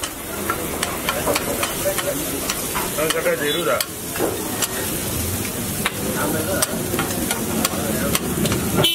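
Egg sizzling on a hot flat griddle while a metal spoon scrapes and taps across the cooking surface, stirring the scrambled egg with many quick, irregular clicks.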